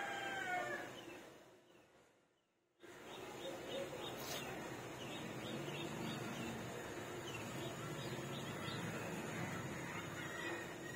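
Birds calling and chirping over steady background noise. The sound fades away about two seconds in and cuts back in abruptly, followed by a run of quick, high chirps.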